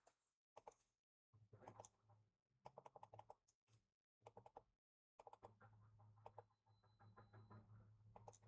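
Faint computer keyboard typing: quick runs of keystrokes separated by short pauses.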